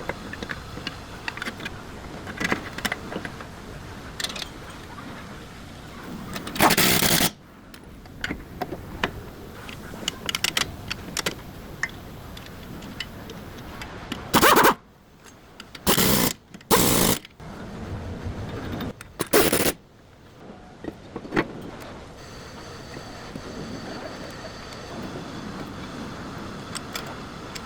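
Metal tools clicking and clanking during wheel-hub work, with five short loud bursts of a compressed-air tool, the first about seven seconds in and four more between about fourteen and twenty seconds in.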